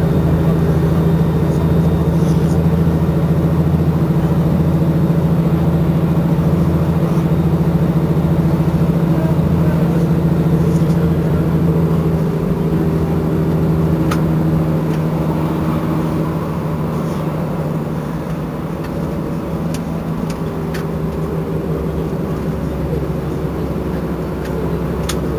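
Iveco Crossway bus engine idling steadily while the bus stands still, a little quieter in the second half.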